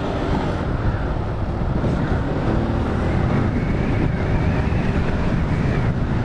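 Yamaha Fazer 250 motorcycle being ridden: a steady rush of wind over the camera microphone, with the single-cylinder engine running underneath.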